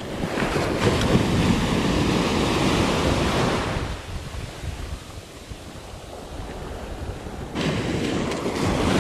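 Small surf waves breaking and washing through the shallows, with wind on the microphone. The wash is loudest for the first few seconds, eases off, then swells again near the end.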